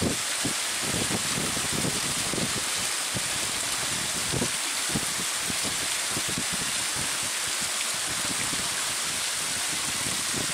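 Wind buffeting the microphone, irregular low rumbles and thumps over a steady hiss.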